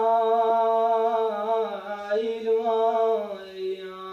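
Iraqi mawwal sung unaccompanied: a single voice holds a long, slightly wavering note. A little after three seconds it steps down in pitch and softens.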